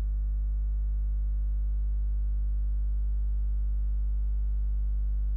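Closing theme music's final chord, a deep sustained drone held steady without change.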